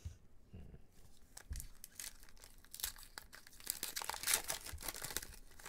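Foil wrapper of a trading-card pack being torn open and crinkled by hand, a dense run of crackling from about a second and a half in almost to the end, after a couple of soft knocks.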